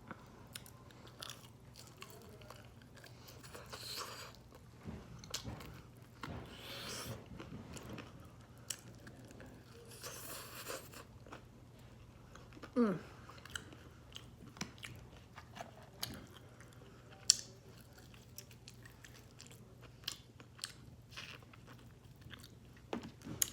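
Close-miked eating of fried chicken: biting and chewing, with crisp crunches and many small wet mouth clicks.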